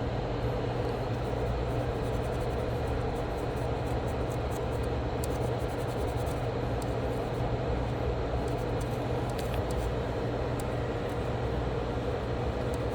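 Steady workbench machine hum and fan-like hiss, with faint light ticks scattered through it.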